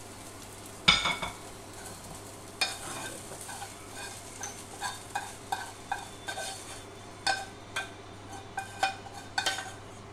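Metal spatula scraping and clanking against a frying pan as hot stir-fried pad kaprao is scooped out, with a light sizzle; a loud clank about a second in, then short scrapes and clinks about twice a second.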